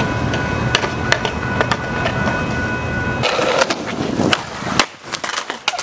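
Skateboard wheels rolling over pavement with a steady rumble and scattered sharp clacks of the board; the rolling stops about five seconds in, followed by a few separate board clacks.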